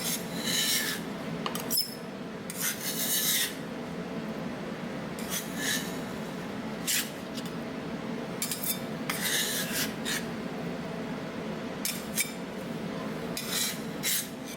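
Metal spatulas scraping across the frozen steel plate of a rolled ice cream pan in irregular strokes, one every second or two, over a steady low hum.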